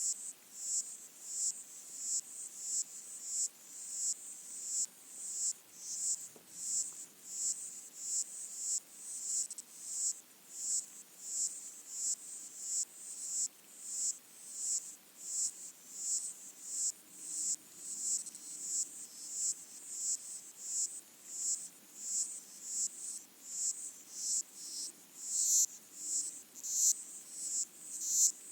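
Underwater chorus of pygmy water boatmen (Micronecta) stridulating, heard through hydrophones: high-pitched chirring pulses repeating evenly about one and a half times a second, each swelling and then cutting off. The source is the recordist's presumption.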